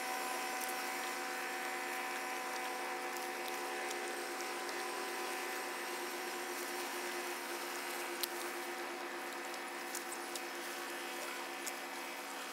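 Steady mechanical drone of boat engines, several held tones at once, with a few faint clicks.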